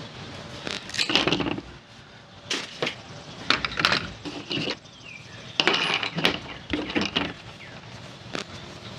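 Small metal objects clinking and knocking, a string of sharp, irregular taps with a short ring, as tools and cable are handled on a work table.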